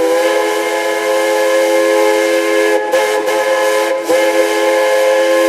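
Ice hockey arena goal horn sounding one long, loud, steady chord of several tones, the signal for a home-team goal. It dips briefly twice near the middle.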